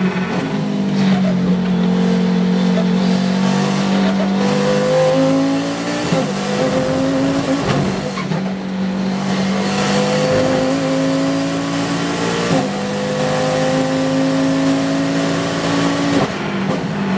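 KTM X-Bow GTX race car's Audi 2.5-litre turbocharged five-cylinder engine, heard onboard, pulling hard. Its pitch holds fairly even for the first few seconds, then climbs steadily, broken by sharp upshifts about six and twelve and a half seconds in. Near the end the throttle lifts abruptly for braking.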